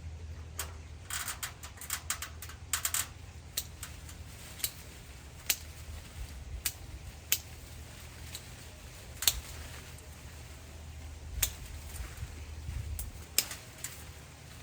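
Sharp, irregular clicks and snaps of branches and twigs being cut or broken during tree trimming, several in quick succession in the first few seconds, then single ones about a second apart, over a low steady hum.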